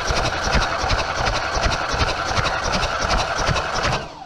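A VW Passat B3 1.8-litre RP four-cylinder petrol engine is cranked on its starter for a compression test of the third cylinder. It turns over at an even, rhythmic beat and stops about four seconds in. The gauge climbs to 12 kg/cm², the same as the other cylinders.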